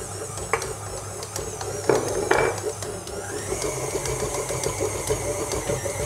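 KitchenAid Artisan stand mixer running at low speed, its dough hook kneading pizza dough, with a steady motor hum and whine and a few thuds of the dough against the steel bowl about two seconds in. About three seconds in the whine rises and then holds steady.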